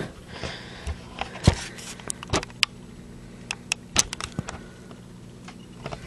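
Scattered light clicks and knocks from handling glass jars of soil on a wooden table, coming in small clusters over a steady low hum.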